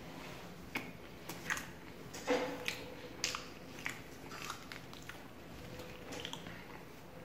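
Fingers tearing a paratha apart on a plate: scattered soft clicks and tearing rustles, a few a second, with a faint steady hum underneath.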